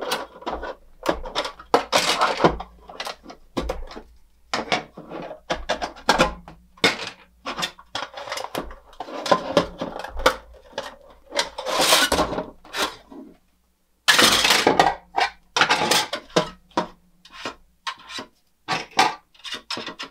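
Hard plastic parts of a toy doll-sized refrigerator clicking, clattering and rubbing as its grates, doors and back are pulled off and handled by hand. The sound breaks off completely for a moment about two-thirds of the way through.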